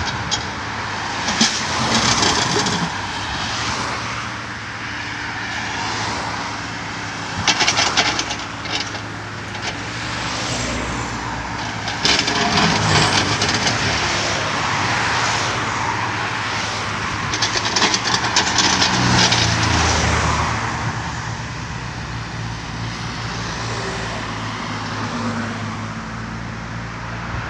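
Kobelco SK35SR mini excavator's diesel engine running steadily, its note swelling under load now and then as the hydraulics work the bucket. Several bursts of clattering come as the steel bucket digs and scrapes in the soil.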